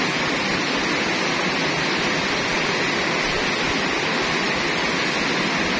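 Heavy rain falling on a corrugated metal roof and trees: a steady, even hiss.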